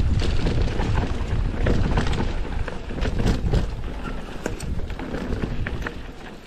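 Mountain bike rolling fast down a dirt singletrack: tyres on dirt and small rocks, with frequent rattles and knocks from the bike over bumps, over a low wind rumble on the microphone that eases off in the second half.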